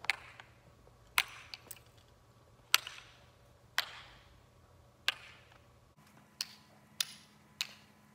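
Wooden kendama clacking: the ball knocking into the cups, sharp single clacks about once a second.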